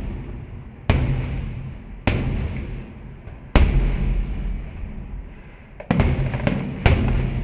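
Aerial firework shells bursting: a series of sharp booms, each trailing off in a long rumbling echo. They come a second or more apart, then several in quick succession near the end.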